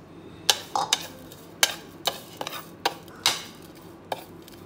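Steel spoon scraping and clicking against a plate while stirring dried chilli flakes together with chilli seeds, in a series of about eight irregular strokes.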